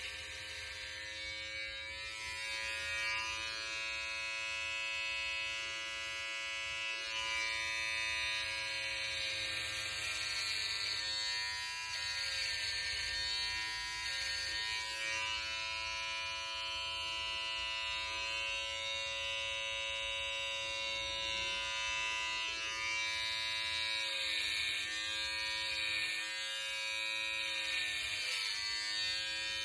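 Electric hair clipper buzzing steadily as it is run over the scalp to shave the head, its pitch wavering slightly at times.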